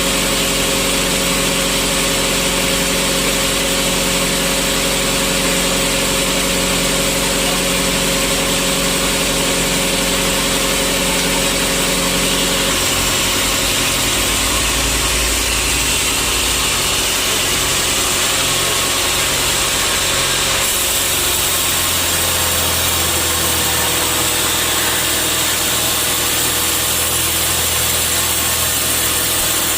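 Sawmill machinery running steadily, a motor under a constant load, with its pitch and tone shifting about 13 seconds in and again about 21 seconds in.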